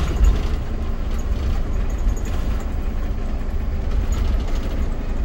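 Steady low rumble of a moving motorhome, engine and road noise together, with a louder knock at the very start.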